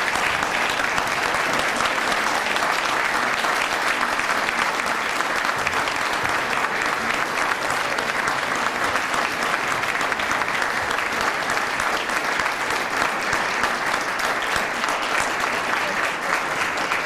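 Audience applauding steadily for an award inductee, a dense even clapping that holds throughout and begins to die away at the very end.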